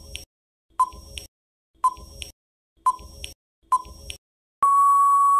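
Quiz countdown timer sound effect: short electronic beeps, each with a click, about once a second, then a long steady beep near the end marking time up before the answer is revealed.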